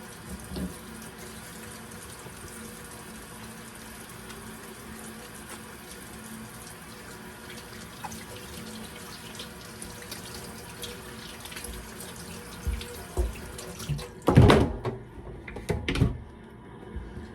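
Water running steadily from a kitchen sink tap while hands are washed under it. Near the end there are a few loud knocks and clunks.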